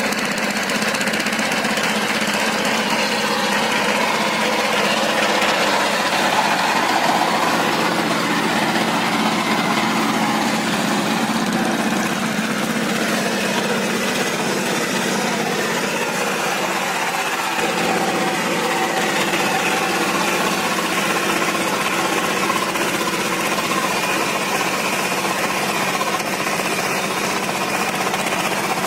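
Single-cylinder diesel engine of a two-wheel power tiller running steadily under load as its rotavator tills flooded paddy mud, with a fast, even chugging beat. The engine note shifts slightly a little past halfway.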